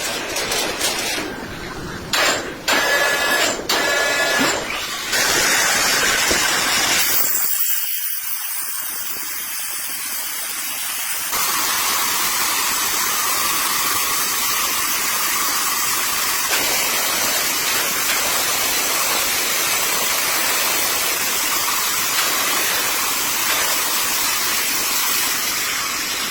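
Loud, hissing noise of wood-processing machinery, changing abruptly several times in the first eleven seconds and then holding steady.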